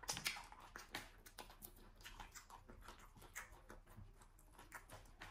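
Faint chewing and wet mouth sounds of someone eating fufu and okra soup by hand: a steady run of soft smacks and clicks.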